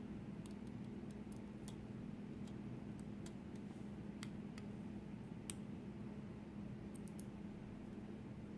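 Faint, scattered light metallic clicks of a padlock being worked apart by hand with small tools, over a steady low hum.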